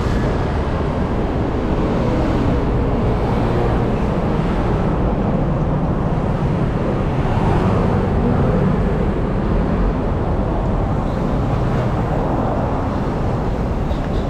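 City road traffic: motor scooters and cars running and passing close by, heard as a steady low drone with no distinct single event.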